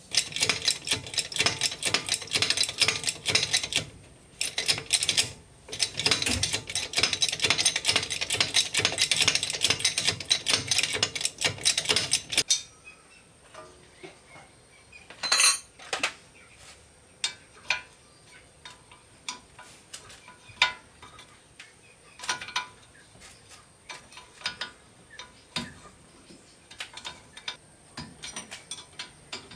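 Rapid, dense metallic clicking and rattling for about twelve seconds, which stops abruptly, followed by scattered single clinks and taps of metal.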